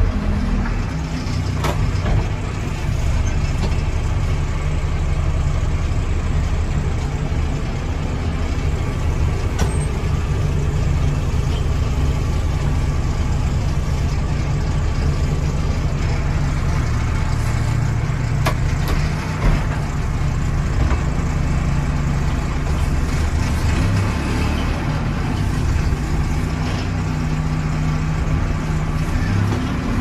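Case 580 Super M backhoe's four-cylinder diesel engine running steadily as the machine drives along, heard from inside the cab. A few light knocks and rattles come through now and then.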